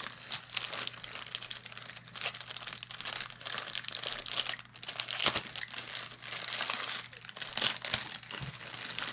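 Mailing envelope and its packaging being handled and opened: a dense, irregular run of crinkling and rustling crackles.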